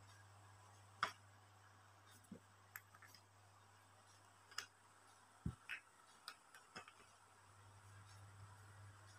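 Near silence with a low steady hum and about eight faint, scattered clicks and taps from a small metal-lidded jar and a crocheted pouch being handled; the sharpest click comes about a second in.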